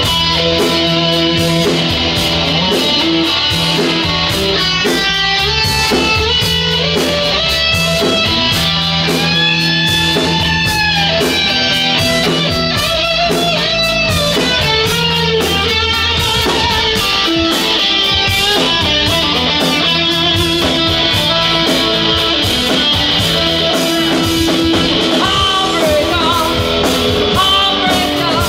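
A rock band playing live, electric guitar to the fore over bass guitar and a drum kit.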